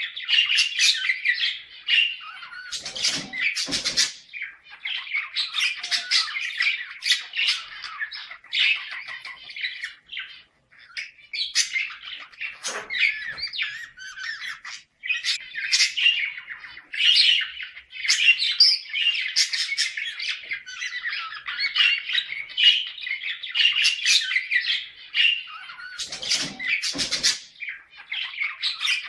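Budgerigars chattering and warbling without a break, the dense courtship chatter of a breeding pair. Three louder, harsher bursts cut through the chatter, at about three seconds, thirteen seconds and twenty-seven seconds.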